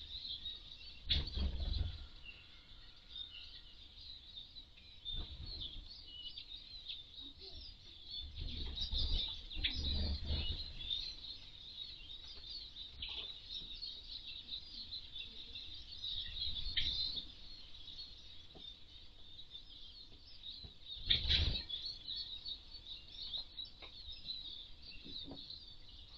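Eurasian siskins and common redpolls twittering in a high, busy, unbroken chatter. A few short low rumbles come through about a second in, around the middle, and about three quarters of the way in.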